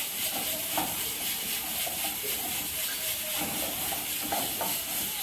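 Chopped garlic sizzling steadily in hot oil in a frying pan on a gas burner, stirred with a spoon, with a few light scrapes of the spoon against the pan.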